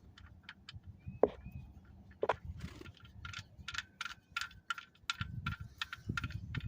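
Light, irregular metallic clicks and ticks, a few with a brief ring, as the 17 mm oil drain plug is threaded back into the oil pan of a 2002 Honda Odyssey by hand and wrench. Low handling rumble comes in about halfway through.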